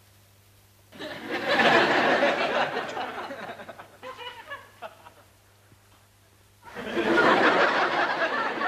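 Studio audience laughing, twice: a wave of laughter starting about a second in and dying away after a couple of seconds, a few scattered chuckles, then a second wave near the end.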